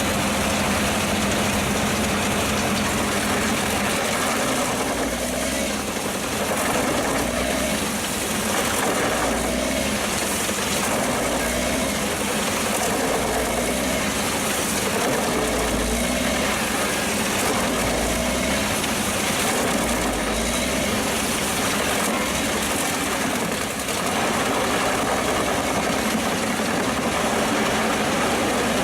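Pezzolato PTH 900 M drum wood chipper running on its Scania DC09 five-cylinder diesel engine: a loud, steady machine noise with a constant low hum, dipping briefly a couple of times.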